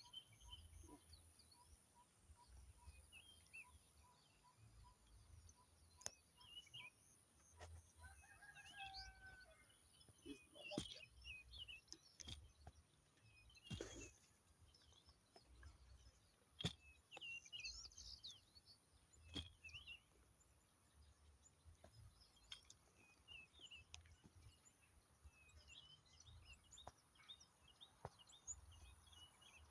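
Faint outdoor ambience: small birds chirping on and off, gusts of wind rumbling on the microphone, and a steady high hiss. A few sharp knocks sound at irregular intervals, the loudest about halfway through.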